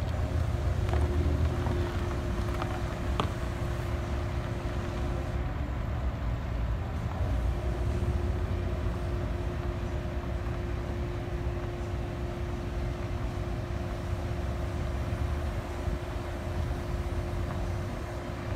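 Vehicle engines running: a low rumble, louder in the first few seconds, with a steady hum over it.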